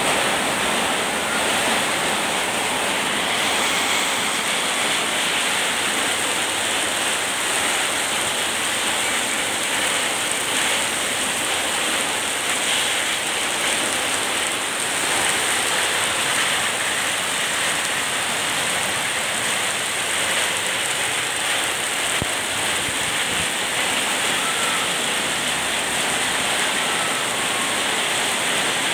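Heavy rain pouring down onto a flooded street, a dense, steady hiss.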